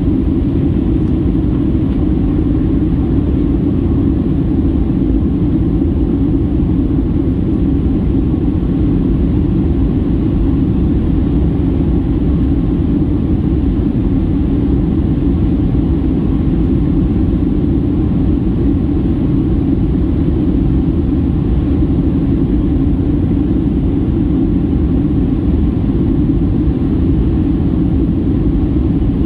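Steady drone of a Boeing 737-800 airliner in descent, heard inside the passenger cabin: engine and airflow noise that stays even throughout.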